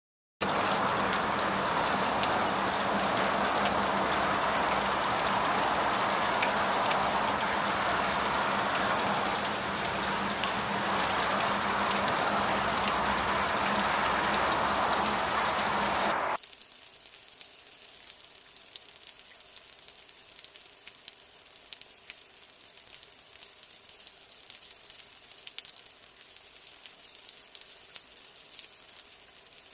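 Rain sound effect: steady heavy rain hiss that starts abruptly, then drops suddenly to a much softer, lighter rain about sixteen seconds in.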